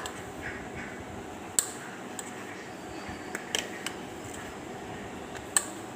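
Steamed bread slices being rolled flat with a rolling pin: a few light, sharp knocks about two seconds apart over a steady low hiss.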